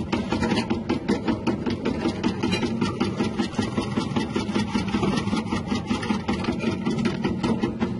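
Electric chip-slicing machine with a 180-watt motor and a wavy-cut blade running steadily, with a fast, even pulsing of about seven beats a second.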